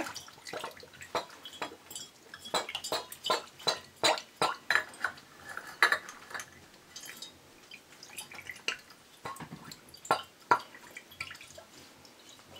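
Sorrel drink being strained through a funnel into a glass jug: irregular drips and splashes of liquid with occasional clinks of utensils and glass.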